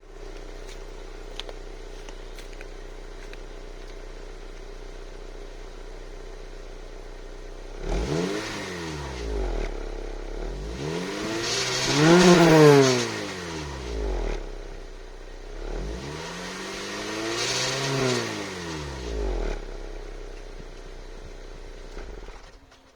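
Honda Civic EP3's four-cylinder engine idling, then revved up slowly and let fall back twice before it cuts off near the end. The owner records it for an unexplained strange noise.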